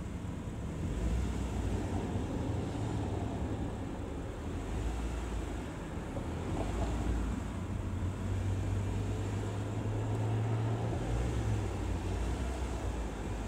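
Car engine being revved with the accelerator pedal, heard from the driver's footwell inside the cabin; from about eight seconds in the revs are held steady and a little louder for a few seconds before dropping back.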